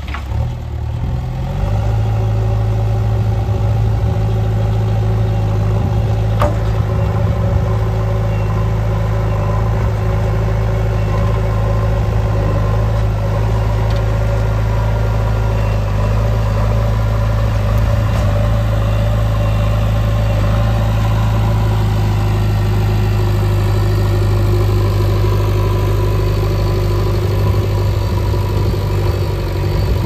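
JCB 3DX Xtra backhoe loader's four-cylinder diesel engine running under load as the front bucket pushes and carries a large stone. The engine picks up speed about a second and a half in, then holds a steady, even note. A single faint knock comes about six seconds in.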